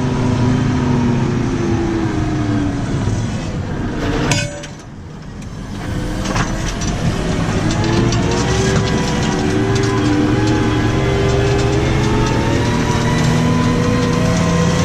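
New Holland T6.155 tractor engine running under ploughing load. About four seconds in the engine note sags and goes quieter for a second or two, then picks back up and runs steadily again.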